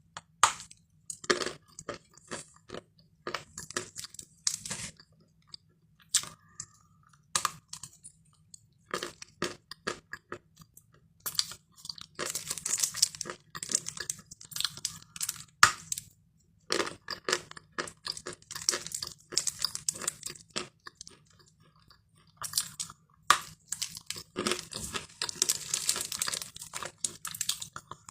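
A person biting and chewing lumps of Khrapovsky chalk: dry crunching in bursts broken by short pauses, with longer runs of steady crunching around the middle and near the end.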